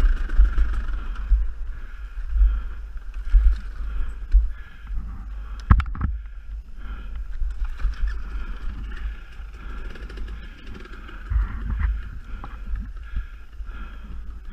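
Dirt bike engine running steadily on a trail ride, with heavy wind rumble on the microphone and a sharp knock about six seconds in.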